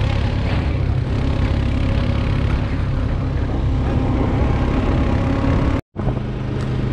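Quad bike (ATV) engine running steadily under way, with wind rushing over the microphone. The sound drops out completely for an instant about six seconds in, then the engine carries on.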